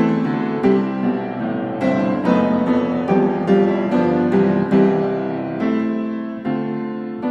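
Piano music: single notes and chords struck at a gentle pace, each left to ring and fade.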